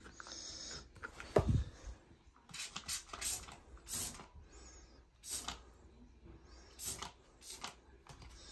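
Trigger spray bottle squirting cleaner onto a tub wall: several quick hissing sprays at uneven intervals, after a single louder knock about a second and a half in.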